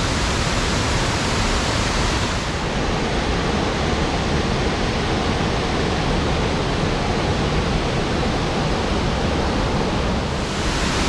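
Cummins Falls roaring: a loud, steady rush of falling water.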